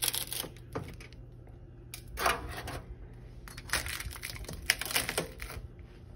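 Metal tongs clicking and a disposable aluminium foil pan crinkling as baked chicken drumsticks are lifted off a foil-lined tray and set into the pan, in about four short bursts.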